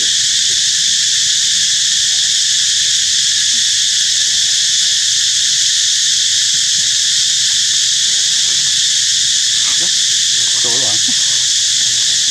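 Loud, steady, high-pitched chorus of insects droning without a break. A few faint, short, wavering calls come through it between about eight and eleven seconds in.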